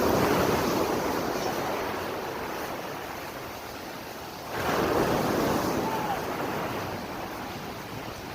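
Sea waves breaking on the shore, two surges about four and a half seconds apart, each washing in and slowly fading.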